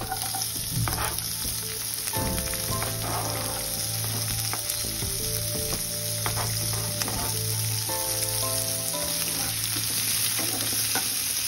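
Chopped onion dropped into hot oil with cumin seeds, bay leaves and green chilli, sizzling as it fries in a nonstick pan and stirred with a spatula. The sizzle jumps up as the onion goes in, then holds steady.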